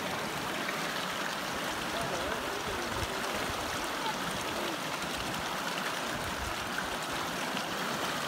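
Fast mountain river rushing over rocks and through rapids in a steady, unbroken flow.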